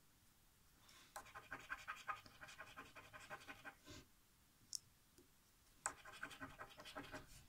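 A coin scratching the latex coating off a scratch-off lottery ticket, faint quick rhythmic strokes. It comes in two spells: from about a second in to four seconds, then again from about six seconds to the end.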